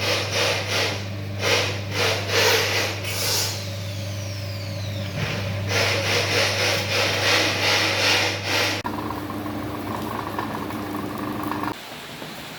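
A cooking machine's motor running with a steady low hum, under irregular noisy surges of stirring or frying. The sound changes abruptly about two-thirds of the way through to a steadier tone, which stops near the end.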